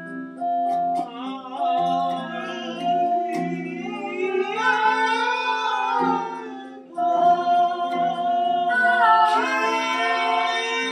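Electronic keyboard holding steady organ-like chords while a man sings a wavering melody over them; the singing begins about a second in and breaks off briefly near the seven-second mark.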